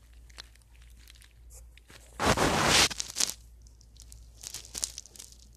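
A loud crunching rustle about two seconds in, lasting under a second, followed by scattered small clicks and rustles.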